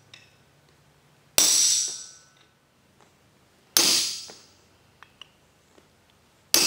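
Hand hammer striking a chisel held on a steel bar on the anvil, cutting grooves into the steel. There are three sharp blows about two and a half seconds apart, the last one near the end. Each blow rings out and fades over about a second.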